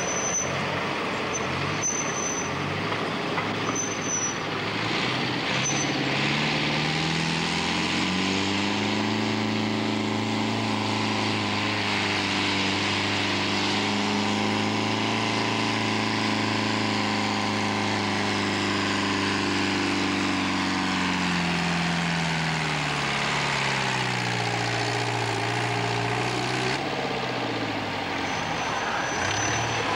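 Modified mini pulling tractor's engine under full load pulling a weight-transfer sled: it climbs in revs over a few seconds, holds high and steady for about ten seconds, then winds back down to a lower run as the pull ends.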